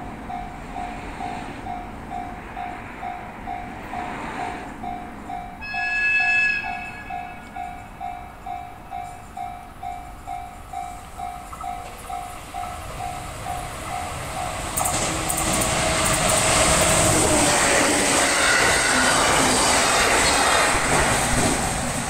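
Level-crossing warning bell ringing steadily at about two strokes a second. About six seconds in, a train horn gives one short blast. From about fifteen seconds a four-car JR 701 series and E721 series electric train runs over the crossing, its running noise rising and drowning out the bell.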